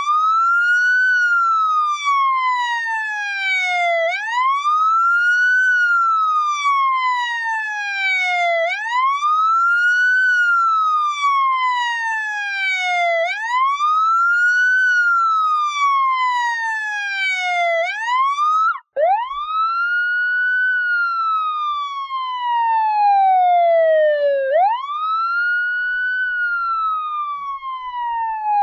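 Police siren in wail mode: its pitch sweeps up quickly, then falls slowly, over and over about every four and a half seconds. It cuts out for an instant about two-thirds of the way through, then carries on.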